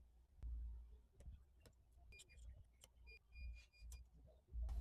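Faint scattered clicks and taps of repair tools working at an iPhone 8 Plus as it is opened, over a low hum. A few short high beeps come about two seconds in and again around three to four seconds in.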